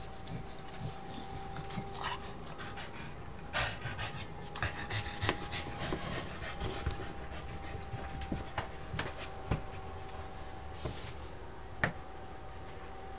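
Australian Shepherd mother dog panting in short, irregular breaths, over a faint steady hum.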